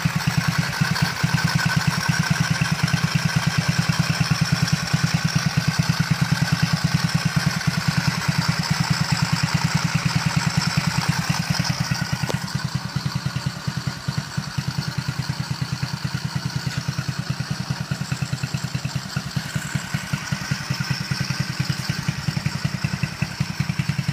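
100cc Cub-type horizontal single-cylinder four-stroke engine, fitted in a BMX-style bicycle frame, idling steadily with an even pulsing beat. It turns slightly quieter and duller from about halfway through.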